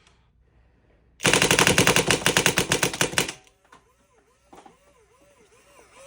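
2007 Planet Eclipse Ego paintball marker, fitted with an Ego 09 board, firing a rapid string of about twenty shots at roughly ten a second over a chronograph. The string lasts about two seconds, starting a little over a second in.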